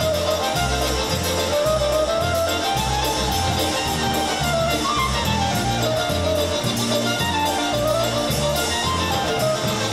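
Live polka band playing a polka, with a steady bass beat under a melody that rises and falls.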